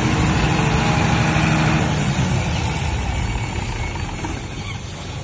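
A 125 kVA six-cylinder diesel generator set running steadily, heard through its soundproof enclosure with the door opened to the engine. The hum eases off and grows quieter over the last few seconds.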